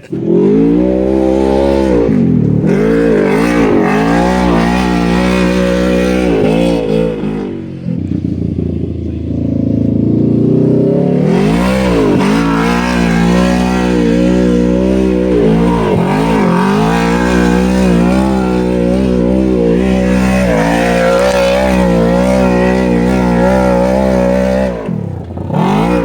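Off-road vehicle engine running loud under throttle, its pitch repeatedly climbing, then dropping sharply and climbing again as the throttle is worked, with a longer stretch at lower revs about eight to eleven seconds in.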